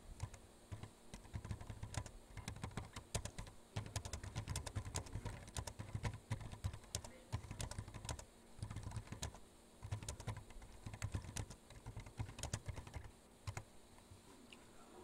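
Typing on a computer keyboard: quick runs of key clicks separated by short pauses, stopping about a second and a half before the end.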